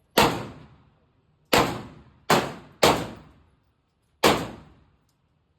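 Glock 17 Gen5 9mm pistol firing five single shots at an uneven pace, the last three closer together before a longer pause. Each shot is a sharp crack with a short decaying echo.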